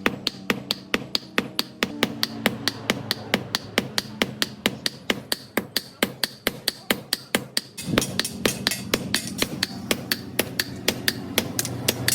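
Hammer striking steel in a fast, even rhythm of about four to five blows a second, as a sickle blade is forged; a heavier, deeper blow lands about eight seconds in.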